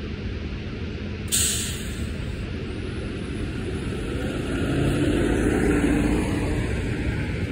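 City bus letting off its air brakes with a sudden sharp hiss about a second in, then its engine growing louder as it pulls away from the stop, loudest about six seconds in before fading.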